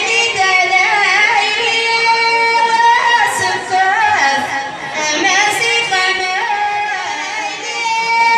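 A woman singing into a microphone over musical accompaniment, drawing out long held notes that waver and slide in pitch.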